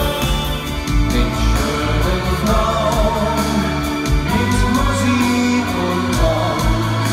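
Music with a singing voice over guitar and a steady beat.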